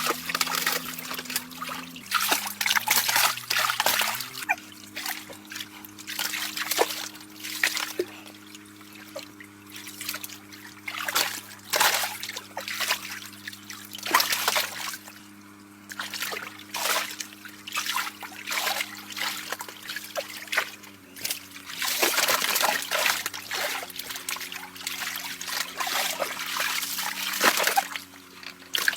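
Irregular splashing and trickling of shallow water, heavy at times, over a steady low hum.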